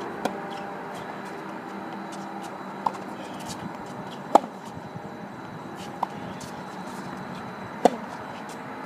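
Tennis ball being hit back and forth in a rally on a hard court: five sharp pops of strings striking the ball and the ball bouncing, one roughly every one and a half to two seconds. The loudest come about four seconds in and near the end.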